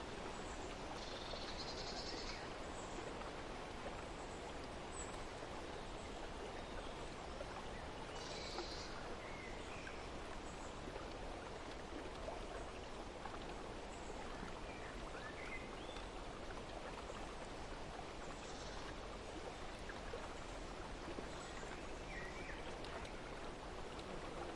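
Steady outdoor ambience of flowing water, with a few brief, high bird chirps scattered through.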